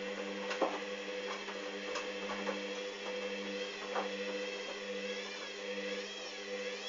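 Hoover Dynamic washing machine running its spin with an unbalanced load: a steady motor hum with scattered clicks and knocks. Near the end a higher whine starts wavering up and down about once a second.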